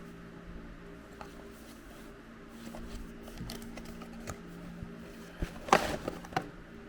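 Small clicks and taps of toys and packaging being handled, with a brief louder rustle about six seconds in, over a steady low hum.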